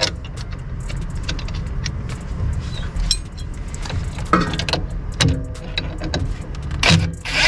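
Light metallic clinks and taps of suspension parts and hand tools being handled while a front suspension arm is refitted, over a steady low hum.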